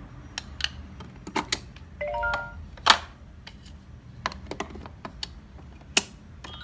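Irregular clicks and clacks of a plastic VTech alphabet train toy and its pieces being handled, the loudest knocks about three and six seconds in. A short rising electronic beep from the toy sounds a little after two seconds.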